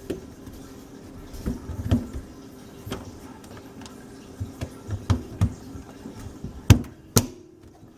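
Plastic sink-drain fittings clicking and knocking as a washer and slip nut are worked onto a PVC drain pipe, with two sharper clicks near the end.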